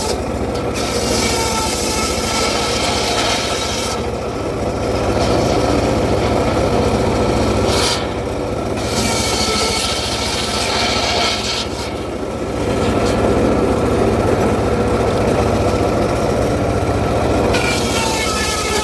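Circular saw cutting acacia wood, a loud rasping cut over a steady low machine hum. The rasp eases and comes back several times as the blade works through the wood.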